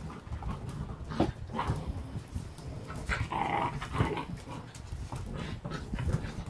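Nearly eight-week-old puppies and their mother dog play-fighting, with low growling throughout and a brief higher cry about three seconds in, over scuffling on a wood floor.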